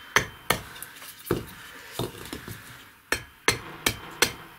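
A hatchet chopping into a wooden carving blank held on an oak chopping stump. There are about eight sharp chops at an uneven pace, several close together in the last second and a half.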